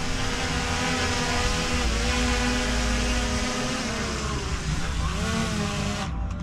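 DJI Mini 3 Pro drone in flight, its propellers making a steady multi-tone whine over a hiss. The pitch dips and recovers several times as the motors change speed while it is flown back. Near the end the high hiss drops away abruptly.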